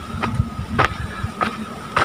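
Footsteps crunching on a loose dirt-and-gravel trail while walking uphill, about one step every 0.6 seconds, with low wind rumble on the microphone.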